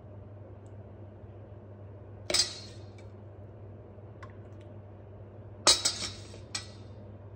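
Metal ladle clinking against a stainless steel mixing bowl while custard mix is ladled out: one clink a little over two seconds in, then a quick run of three near the end.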